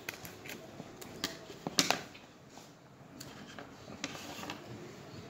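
A few knocks and clinks of kitchen utensils and containers being handled, loudest in a cluster a little under two seconds in, with a short scraping rustle about four seconds in.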